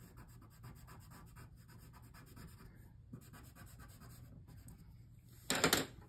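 Pastel pencil scratching on watercolour paper in many short, fine strokes, with a brief louder burst of noise near the end.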